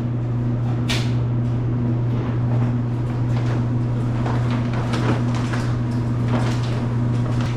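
Laundromat washers and dryers running with a steady low hum, while machine doors are opened and shut with scattered clunks and clicks as wet laundry is moved into the dryers.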